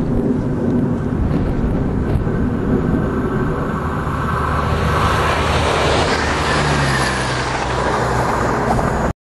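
Train approaching along the main line, its running noise and rail hiss building from about four seconds in over a steady low rumble, then cutting off suddenly near the end.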